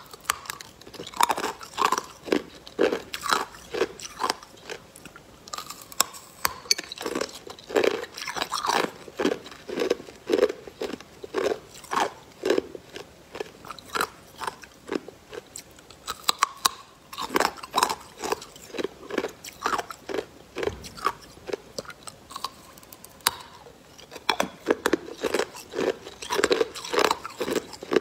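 Close-miked biting and crunching of hard, clear ice pops, then chewing the ice: a steady run of sharp, crackling crunches, about one or two a second.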